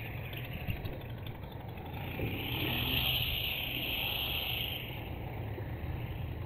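Motor vehicle engine running, swelling louder from about two seconds in and easing back near five seconds.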